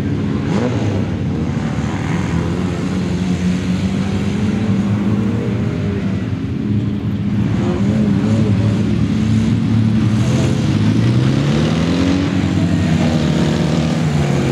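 Autocross race car engines running hard on a dirt track, the pitch rising and falling as the cars accelerate and shift, with one long climb in revs near the end followed by a drop.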